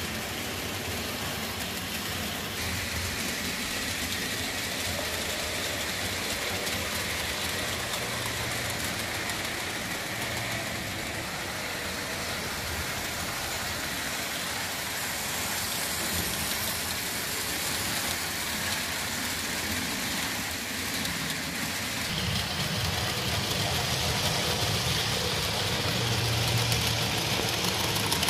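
HO-scale model electric trains running on the layout's track: a steady whirr of small motors and rolling wheels, a little louder from about two-thirds of the way in.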